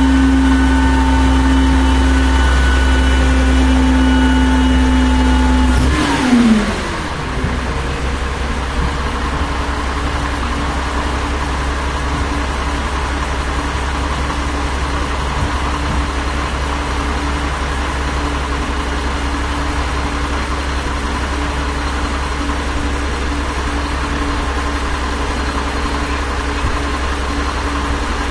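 A 1996 Volvo WX64 garbage truck's diesel engine runs steadily at raised revs with a held whine. About six seconds in, the revs fall away quickly, and it settles to a steady, quieter idle.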